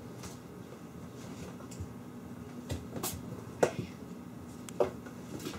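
Kittens playing, their paws and claws landing and scrabbling on a wooden floor and a plastic storage bin: a handful of sharp taps and knocks, the loudest a little past halfway.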